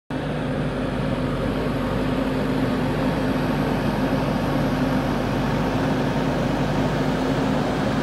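JCB 3DX backhoe loader's diesel engine running steadily at a constant pitch.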